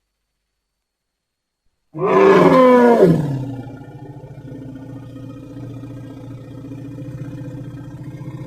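Animal roar sound effect: a loud pitched call begins about two seconds in and falls in pitch over about a second, then trails off into a long, lower, rough growl.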